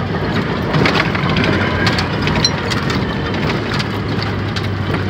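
Dodge Ramcharger's engine and drivetrain running steadily at low speed off-road in low-range lock, heard from inside the cab, with the old-school transfer case audible. Scattered sharp cracks and ticks run over it, from the tyres crunching over the rough trail.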